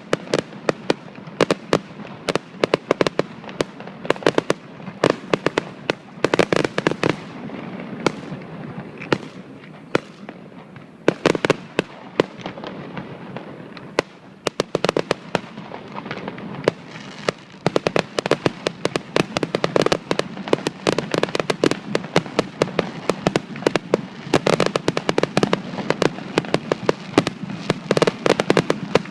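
Fireworks display: a dense run of sharp bangs and crackling reports, many a second, coming in clusters with brief lulls around 8 to 10 and 12 to 14 seconds in.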